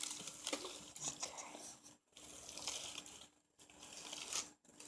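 Irregular rustling and crinkling of plant packaging and loose potting soil being handled as a potted houseplant is unwrapped, with a couple of brief pauses.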